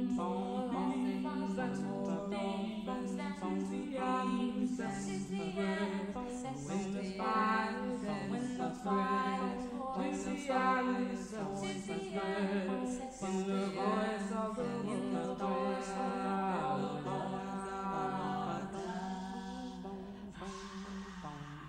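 Unaccompanied singing, a slow chant-like melody over a held low note that breaks off and comes back every few seconds.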